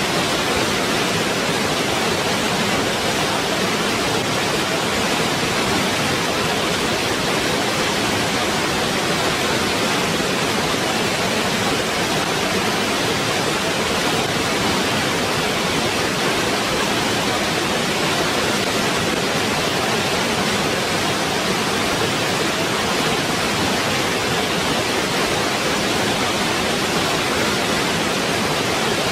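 Waterfall: a steady, unbroken rush of falling water, even throughout.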